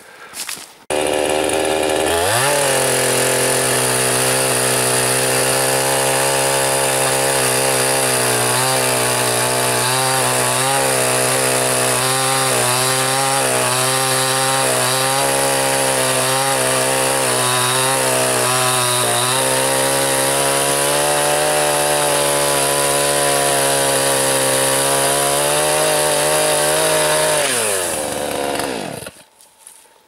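Two-stroke chainsaw revving up about two seconds in and running at full throttle, its pitch wavering as the chain cuts into a dry dead tree trunk. Near the end the revs fall away and the engine stops.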